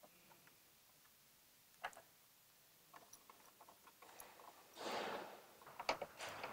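Faint clicks and ticks of a screwdriver turning the screws that fix a motorcycle's front fairing to its subframe. A short rustle comes about five seconds in, and more clicks follow near the end.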